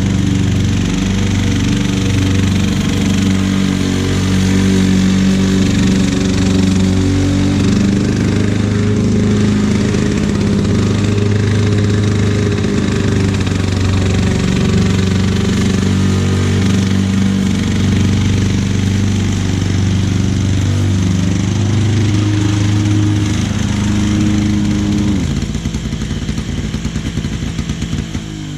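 Lawn-Boy two-stroke walk-behind mower running under load while cutting and bagging grass, its pitch wavering slightly. Near the end the engine note falls away and it begins winding down.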